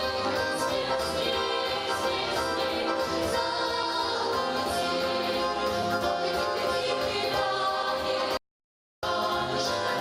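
Song accompaniment music, with many instruments or voices playing at once. About eight seconds in it cuts out to silence for half a second, then resumes.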